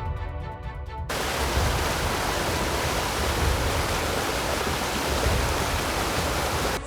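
A steady, even hiss that starts abruptly about a second in and cuts off sharply near the end, over the bass of background music.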